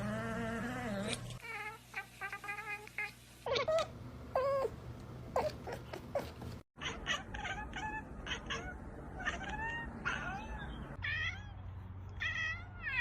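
Domestic cats making a series of odd meows and caterwauls, some drawn out with rising and falling pitch, others in quick runs of short repeated calls.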